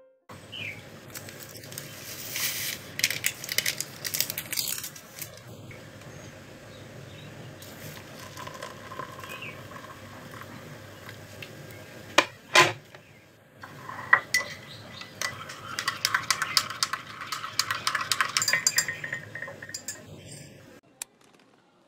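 Making instant coffee: a spoon clinks against a jar and cup, then hot water pours from an electric kettle into the cup. Halfway through comes a single sharp knock, then a long run of rapid metal clinks as a spoon stirs in the cup. A bird chirps faintly once or twice.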